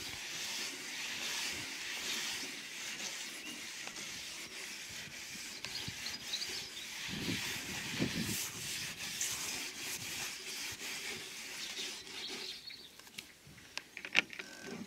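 Wire wool scrubbing a wet painted van roof by hand, a steady scrubbing rub that grinds off paint overspray set into road grime. The scrubbing eases off about twelve seconds in, followed by a few light clicks.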